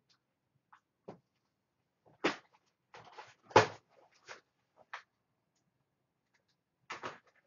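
Cardboard package being cut open with a knife and handled: scattered short scrapes and rustles of cardboard and tape, with one louder knock about three and a half seconds in.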